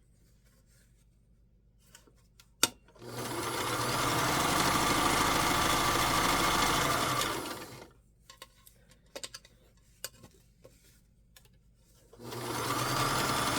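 Vintage Kenmore sewing machine stitching canvas straps in two runs: one of about four and a half seconds starting about three seconds in, and another starting near the end. Between the runs come light handling clicks and one sharp click.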